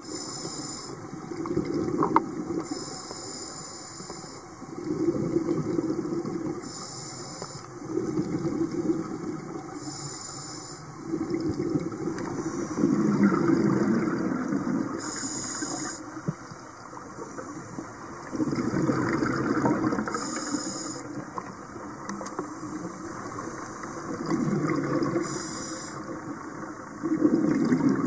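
Scuba diver breathing through a regulator underwater: a short hiss on each inhale, then a longer rush of exhaled bubbles, repeating every three to four seconds.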